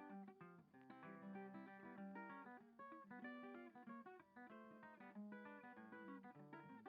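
Quiet background music: acoustic guitar picking a quick run of plucked notes.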